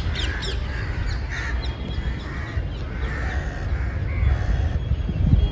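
Birds calling: a run of harsh, rough calls, with a few quick high chirps near the start, over a steady low rumble.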